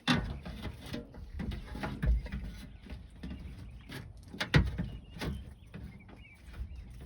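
Irregular clicks and knocks of hand tools and metal latch parts being handled while the rear door latch is screwed back together, with a sharp knock at the start and another about four and a half seconds in.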